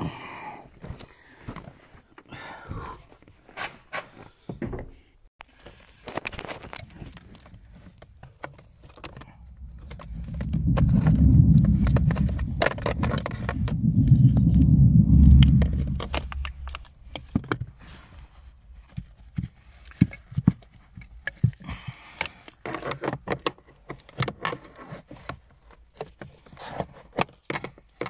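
Irregular clicks, taps and scrapes of a screwdriver and plastic trim at a Citroën C4 Grand Picasso's pollen filter housing. Midway comes a loud low rumble lasting several seconds, in two swells.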